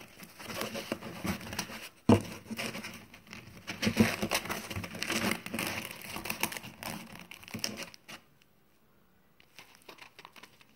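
Emery cloth rustling and crinkling as it is wrapped and pressed by hand around a foam pipe-insulation tube, with a couple of sharper clicks. The handling noise stops about eight seconds in, leaving only faint ticks.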